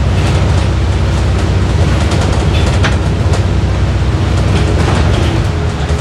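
Bus engine running under load as the bus drives, a loud steady low drone with road noise, heard from inside the passenger saloon. Loose interior fittings click and rattle over it, most around the middle.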